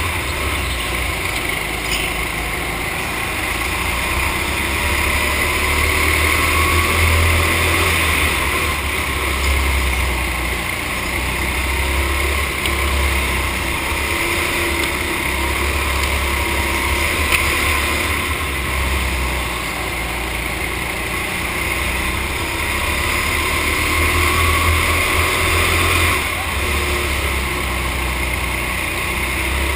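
Go-kart engine running at racing speed, heard from a camera mounted on the kart, with a steady rush of air and track noise. The low engine drone swells and fades every few seconds as the kart slows for corners and accelerates out of them.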